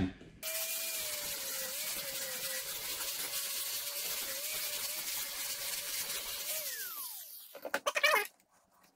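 Electric angle grinder plunge-cutting a hole into a metal pipe: a steady whine with hiss while the disc grinds, then the motor spinning down with a falling pitch about seven seconds in. A brief, louder whimpering sound follows near the end.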